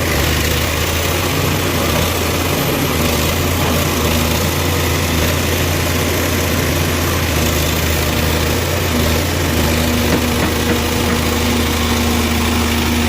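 Case 851EX backhoe loader's diesel engine running steadily, a low even hum, with a higher steady note joining about two-thirds of the way through.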